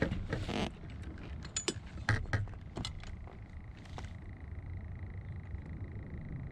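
Handling noise as a flounder is measured on a kayak: a brief rustle, then scattered clicks and knocks over the first four seconds or so, with a faint steady high tone after that.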